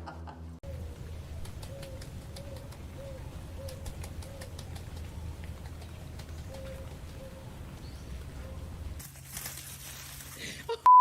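A bird cooing softly and repeatedly over a steady low hum, with scattered light clicks. A loud steady beep tone cuts in at the very end.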